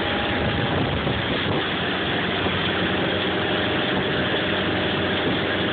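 Motorboat engine running steadily while the boat is underway, mixed with a steady rush of wind and water.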